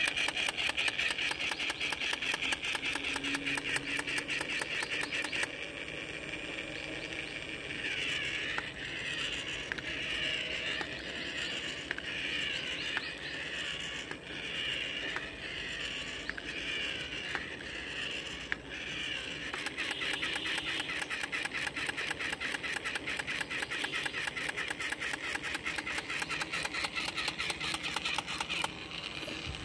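Battery-operated crawling Captain America toy soldier running: its small motor and gears click rapidly. For about ten seconds in the middle, a warbling, siren-like electronic tone takes over.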